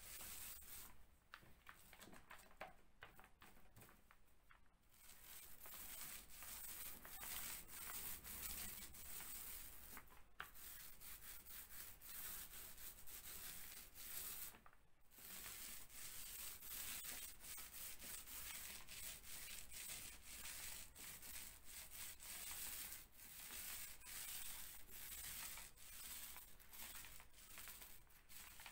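Faint, crackly rubbing of a small paint roller rolled back and forth over plasterboard, applying the final coat, with a few brief pauses between strokes.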